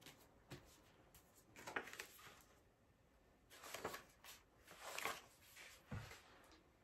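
Faint paper rustling as the pages of a hardcover picture book are turned, a few soft swishes, with a soft knock of the book being handled near the end.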